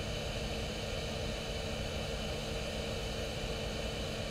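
Steady background hum and hiss, even throughout, with a few faint steady tones.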